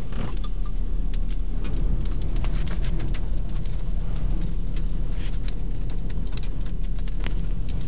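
Severe-storm rain and wind heard from inside a car: a steady low rumble with many irregular sharp ticks of rain striking the windshield.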